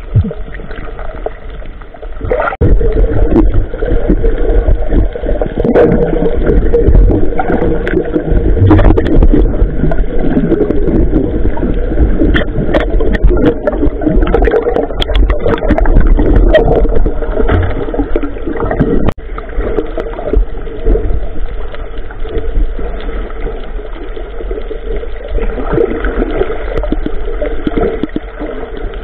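Small boat under way on the water: a loud, steady rumble with water gurgling and sloshing, and a few knocks.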